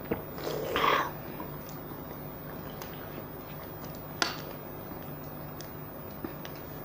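A swallow and breathy exhale after a sip of cola, about a second in, then a single sharp tap about four seconds in and faint clicks as a plastic-wrapped cake slice and a fork are handled on a plastic tray.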